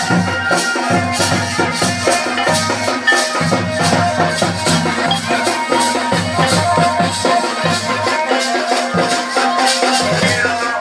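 Pahari folk music for a tandi dance: a fast, steady percussion beat with a melody over it, the low drum part dropping out briefly a few times.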